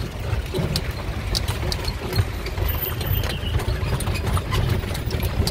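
Steady low rumble of an open carriage rolling through the streets, with scattered clicks and rattles.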